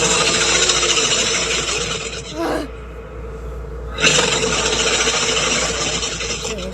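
Two long, harsh rasping calls from a reconstructed extinct-animal vocalization, the first lasting about two and a half seconds and the second starting about four seconds in.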